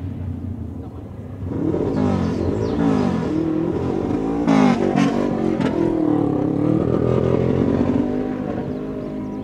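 Suzuki GS400 parallel-twin motorcycle engine revving in repeated rises and falls as the bike pulls away for a wheelie, the engine reluctant to rev out freely. A sharp crack about halfway through.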